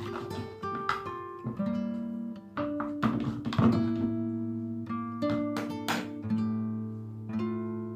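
Background music played on acoustic guitar: notes and chords plucked one after another and left to ring.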